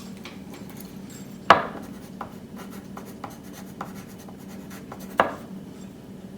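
Pen writing on paper: faint scratching and small ticks, with two sharper taps, one about a second and a half in and one near the five-second mark, over a steady low hum.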